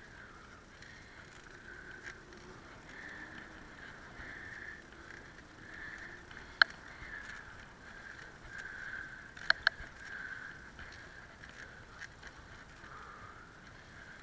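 Bicycle riding along a tarmac lane, heard through a handlebar-mounted camera: a steady rolling noise that rises and falls, with one sharp click about six and a half seconds in and two quick clicks about three seconds later.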